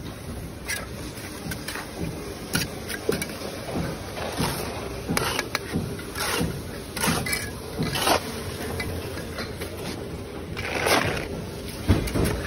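Steel brick trowel scraping mortar and tapping hollow clay bricks as they are buttered and set: a steady run of short scrapes and clicks. Near the end comes a longer scrape as the trowel scoops mortar from the tub.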